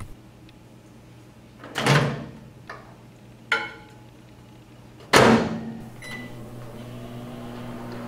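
A microwave oven door is popped open, with a couple of light clicks as the marshmallow is set inside. The door is then shut with a loud bang about five seconds in. A short keypad beep follows, and the oven starts running with a steady hum.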